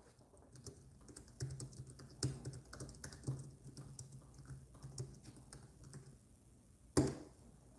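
Computer keyboard typing: a run of light, irregular key clicks, with one louder knock near the end.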